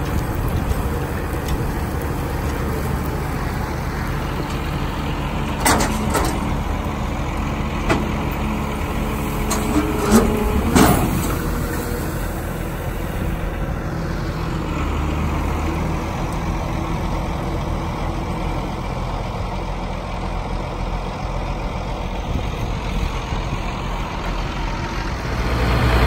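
Allis-Chalmers 7030 tractor running steadily with a John Deere 566 round baler working behind it, plus a few sharp clanks from the machinery about six, eight and ten to eleven seconds in.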